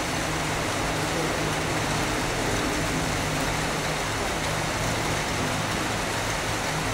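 Steady hiss with a low hum from a Southeastern Class 395 'Javelin' electric train approaching slowly along the platform line.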